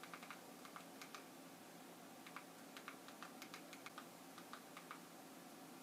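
Faint, quick, uneven clicking of the buttons on a Fire TV Stick remote, a few presses a second, as letters are picked one by one on the on-screen keyboard.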